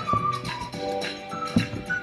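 Background music: a melody of held, steady notes, with a brief click about one and a half seconds in.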